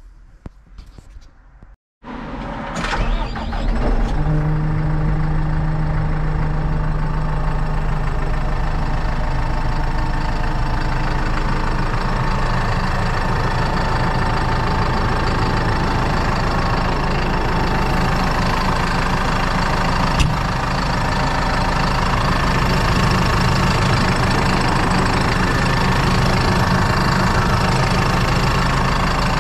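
A 2013 McCormick MC130 tractor's diesel engine cranking and catching about two seconds in, then settling into a steady idle.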